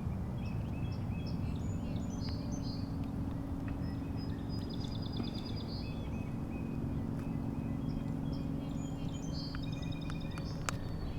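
Small birds chirping and trilling, the calls coming in short runs, over a steady low hum.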